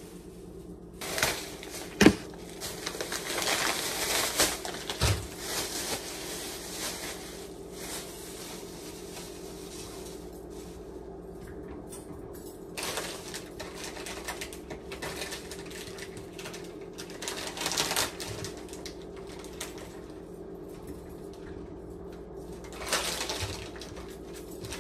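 Groceries being unpacked: plastic bags and packaging rustling, with knocks as items are set down and one sharp knock about two seconds in, over a steady hum.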